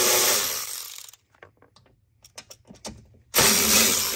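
Cordless electric ratchet spinning out bolts; the run fades out about a second in. A few light clicks follow, then the ratchet runs again near the end.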